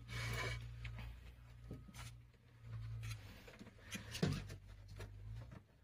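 Close handling noise of hands working among a wiring harness and cloth: rustling and rubbing, scattered clicks, and one sharper knock about four seconds in. A low steady hum lies underneath and stops near the end.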